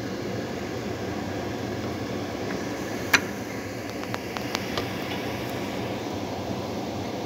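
Kitchen range hood fan running with a steady whir. There is a sharp click about three seconds in, then a few lighter clicks.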